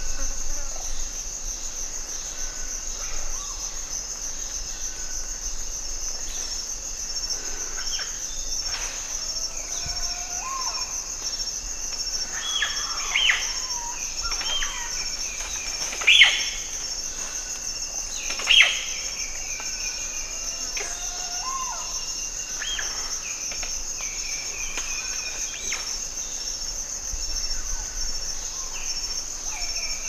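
West African rainforest ambience: a steady high-pitched insect drone, with scattered animal calls, chirps and short rising whistles over it. About halfway through, two louder sharp calls, each falling in pitch, come a couple of seconds apart.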